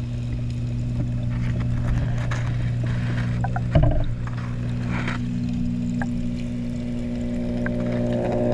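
Steady low hum picked up underwater through a camera's waterproof housing, with a single dull knock about four seconds in.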